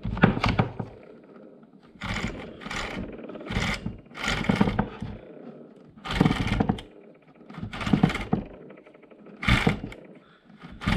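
The chain on a Ryobi 14-inch chainsaw is pulled by hand along its bar in about nine short, noisy strokes, each around half a second long. This is a check that the freshly tensioned chain still moves freely.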